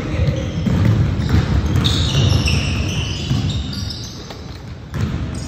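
A basketball bouncing on a court during play, among knocks and short high squeaks.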